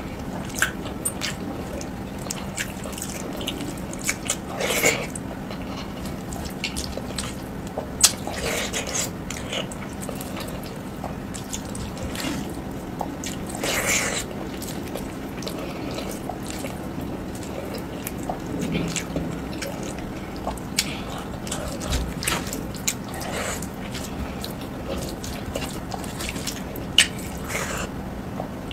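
Close-up eating sounds: fingers squishing and mixing rice with dal on a steel plate, with wet mouth clicks and chewing coming as short, scattered sounds.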